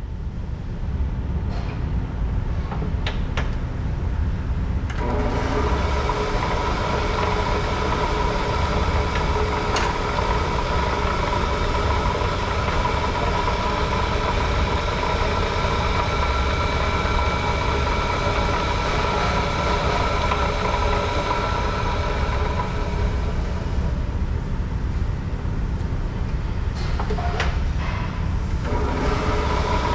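Wells 8M horizontal band saw running idle, with no cut: its 1/2 hp motor, variable-speed belt drive and blade turning with a steady rumble. A higher steady whine joins about five seconds in and fades out near the end, with a few light clicks.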